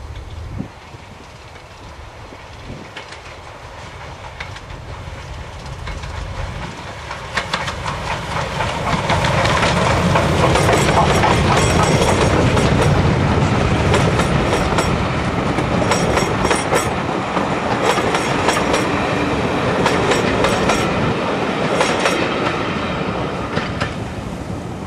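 A steam locomotive hauling a passenger train approaches and passes close by, its wheels clicking over the rail joints. It grows louder over several seconds, stays loud while the coaches go past, then starts to fade near the end.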